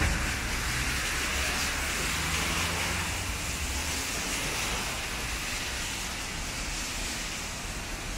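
Heavy rain falling steadily, an even hiss, with a low traffic rumble under it that fades out about three seconds in.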